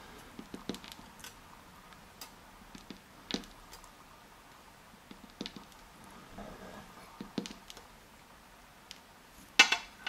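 Tiny lock pins being taken out of an Abus EC750 dimple cylinder's plug with tweezers and set into a pin tray: scattered light metallic clicks and ticks, with a louder clatter near the end.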